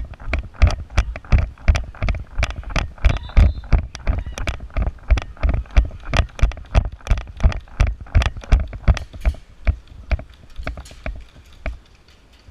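Rapid, regular heavy thumps, about four to five a second, typical of running footsteps picked up by a body-worn camera; they thin out about ten seconds in.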